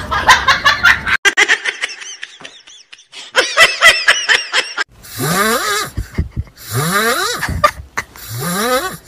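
Laughter in quick repeated ha-ha pulses, followed by three longer sounds that each rise in pitch.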